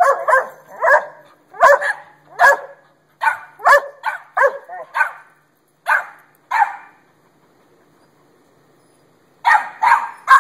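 A dog barking in quick runs of short, sharp, high-pitched barks: about a dozen over the first seven seconds, a pause of about two seconds, then three more barks in quick succession near the end.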